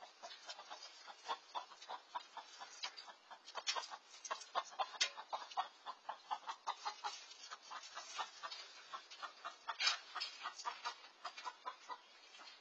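Backyard chickens clucking and cackling in alarm, a rapid string of short, sharp clucks several a second, at a bobcat prowling over the hen house.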